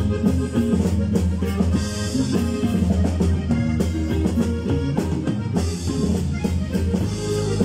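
A live regional Mexican band playing, with a drum kit keeping a steady beat under electric bass and guitars.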